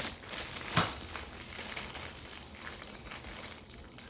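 Plastic wrapping crinkling as the parts of a clothes-hanger rack are handled, with one sharp knock a little under a second in.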